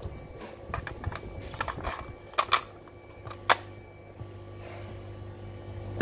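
Plastic clicks and knocks from handling a portable cassette radio and a cassette tape, the loudest about two and a half and three and a half seconds in, over a steady low hum.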